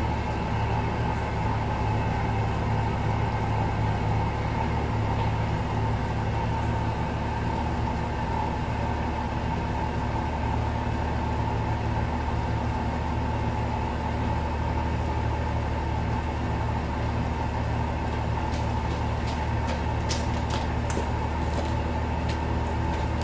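Truck engine running steadily with an even hum; a few light clicks near the end.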